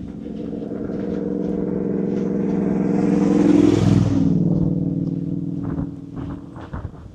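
A car approaching and driving past on the road, its engine and tyre noise building to a peak a little past halfway, the pitch dropping as it passes, then fading away.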